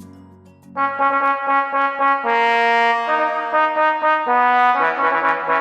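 Background music: a brass fanfare of held chords, coming in loudly about a second in as the earlier music fades, with the chord changing every half second or so.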